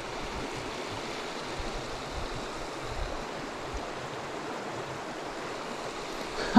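Small mountain creek running over rocks and riffles, a steady rushing of water.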